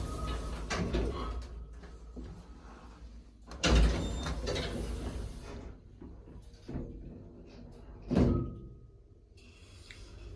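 Automatic sliding doors of a Curti hydraulic lift closing, with a loud bang about four seconds in and another about eight seconds in, and lighter knocks between them. A steady hiss starts near the end.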